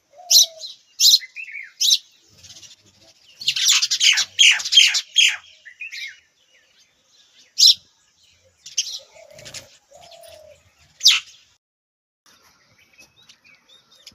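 Small birds chirping: sharp single high chirps, with a quick flurry of overlapping chirps about four seconds in. A low cooing call sounds at the start and again around nine seconds in.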